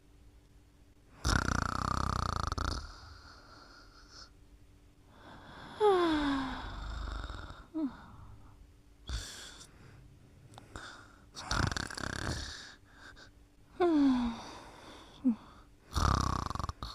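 Snoring: rasping snores every few seconds. Between them come squeaky, whistling breaths that fall in pitch.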